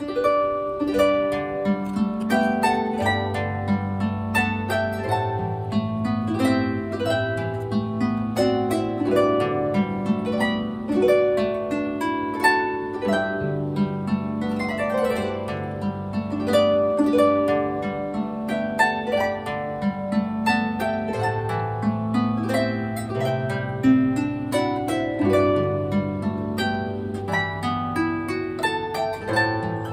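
Harp background music: a steady flow of plucked notes over lower bass notes.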